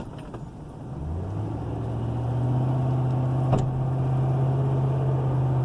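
Car engine and drivetrain pulling away, the engine note climbing about a second in and then holding steady. A single sharp pop about three and a half seconds in: the suspension popping noise, which the driver suspects is the sway bar.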